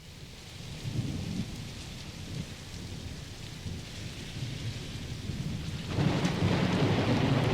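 Thunderstorm: steady heavy rain with deep rolling thunder, fading in at the start and swelling into a louder thunder roll about six seconds in.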